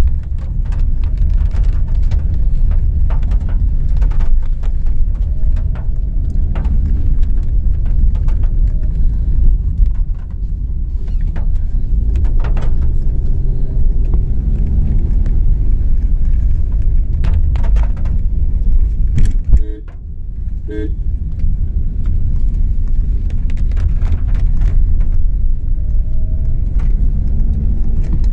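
Inside a car driving slowly over a wet, bumpy lane: steady low rumble of engine and tyres, with frequent knocks and rattles from the bumps. A few short beeps sound about twenty seconds in.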